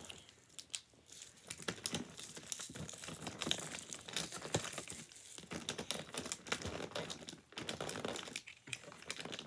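Small foil and plastic wrappers crinkling and tearing in the hands as miniature toy packages are unwrapped, with irregular crackles and light clicks of small plastic pieces.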